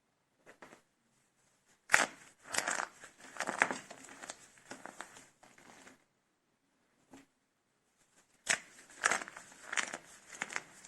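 Small dried soap cups made with starch being broken and crumbled, crunching and crackling. There are two bouts, each opening with a sharp crack, about two seconds in and again near the end.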